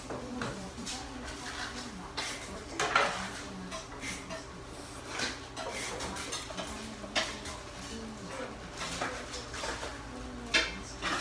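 Dishes and utensils clinking and clattering at irregular moments, with faint background talk.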